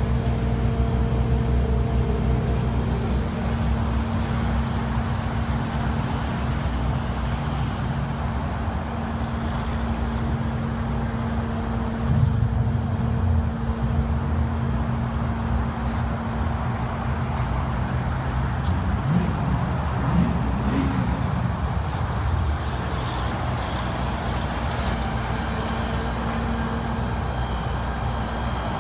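Ford F550 tow truck's 6.7-litre Power Stroke diesel engine running steadily with an even hum, with a few sharp knocks in the second half.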